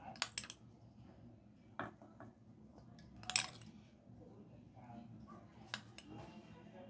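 Steel spoon clinking and scraping against a ceramic bowl while ghee is scooped out, a few sharp clinks spread through, the loudest about three seconds in.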